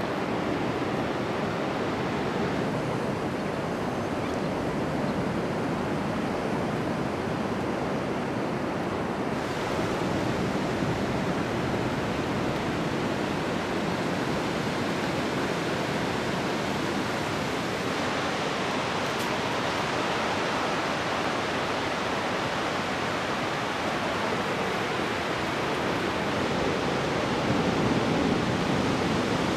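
Ocean surf breaking and washing up a sandy beach: a steady rushing noise with no distinct events.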